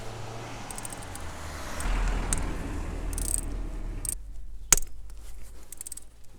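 A hand tool working a bolt on a BMW VANOS unit: scraping and rustling handling noise over a low hum, which drops away abruptly about four seconds in, followed by a single sharp metallic click.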